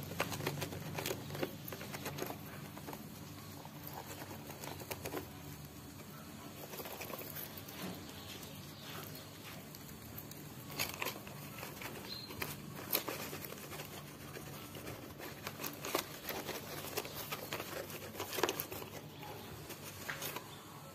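Squirrel digging and rummaging in a potted plant: irregular scratching, rustling and snapping of dry stalks, with crinkling of the thin plastic pot.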